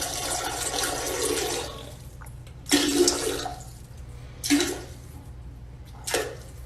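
Rushing, water-like noise for about two seconds, then three short, loud sounds about a second and a half apart, over a steady low hum.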